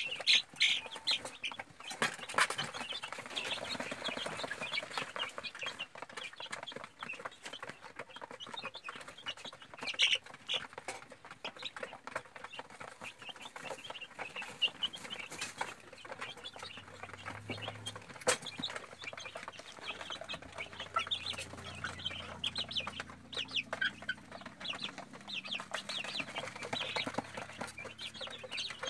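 A crowd of young free-range chicks peeping continuously in a fast, overlapping chatter, with a few sharp knocks now and then.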